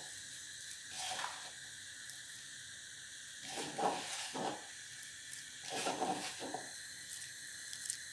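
Hands working a crumbly egg and milk-powder dough in a plastic bowl. Soft rubbing and squishing comes a few times, about a second in, around four seconds and around six seconds, over a steady faint hiss.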